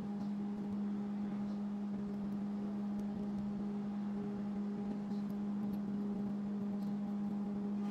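Steady low electrical-sounding hum, unchanging in pitch, with a few faint light ticks.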